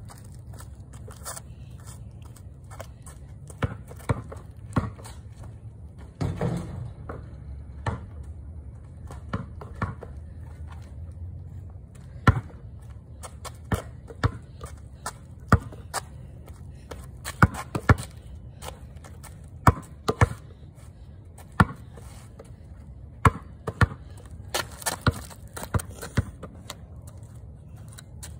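Basketball bouncing on a concrete driveway, dribbled at an uneven pace of roughly one bounce a second, over a low steady hum.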